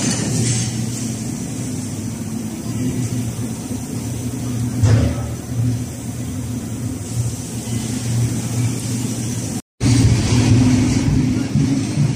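Steady low mechanical drone of machinery running, which cuts out for a moment about ten seconds in.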